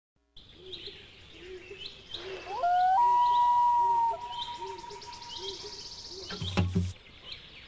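Outdoor birdsong: short chirps repeating throughout, under a low call that repeats about twice a second. A few seconds in, a long whistled call rises and then holds steady for about a second; it is the loudest sound. A brief dull knock comes near the end.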